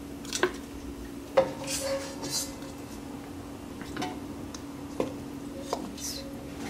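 Wooden spoon knocking and scraping against cooking pots as fried chicken wings are lifted from a nonstick pot into an aluminium pressure cooker: about five separate knocks, the loudest a little over a second in, with a few short scrapes.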